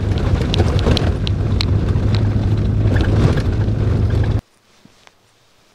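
Vehicle driving on a rough track: a steady engine drone with rattles and clicks, and wind on the microphone. It cuts off suddenly about four seconds in.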